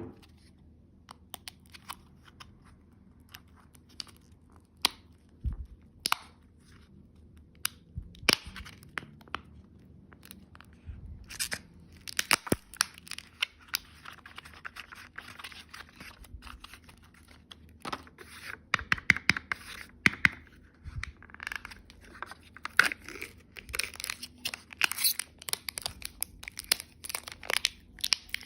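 Candy or surprise-egg packaging being torn open and crinkled by hand: scattered sharp crackles and clicks, sparse at first and becoming a busy run of tearing and rustling about halfway through.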